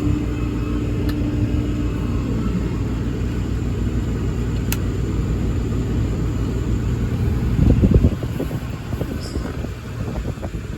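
The Ram 5500's 6.7 Cummins diesel engine running with a steady low rumble. It swells briefly just before eight seconds in, then the rumble drops away. A single sharp click comes near the middle.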